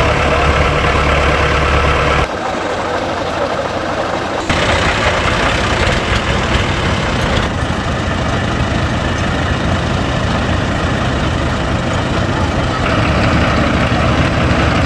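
Farm tractors' diesel engines running at idle. The sound changes abruptly a few times.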